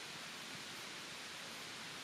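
Steady rush of a mountain stream, an even, unbroken wash of water noise.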